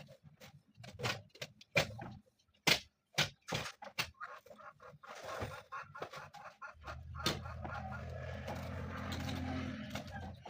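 A quick run of sharp clicks and knocks, then a steady low mechanical hum that starts about seven seconds in.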